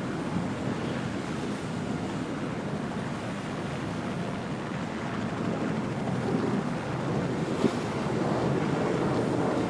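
Steady wind buffeting the microphone over rushing water and waves, as from a boat under way on open water, with one brief knock near the end.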